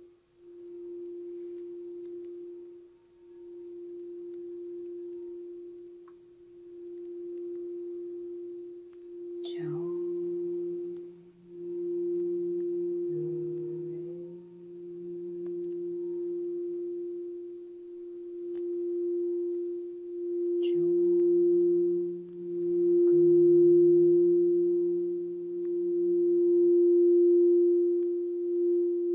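Frosted quartz crystal singing bowl rimmed with a mallet, giving one steady tone that swells and eases every few seconds and builds louder. A second, lower tone joins about a third of the way in and again past two-thirds. The bowl is played as the frequency for the heart.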